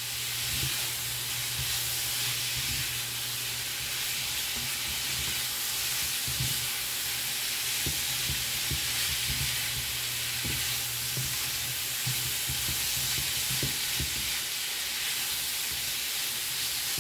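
Sliced smoked turkey sausage sizzling steadily in a frying pan, with scattered light knocks and scrapes of a utensil stirring the pieces against the pan.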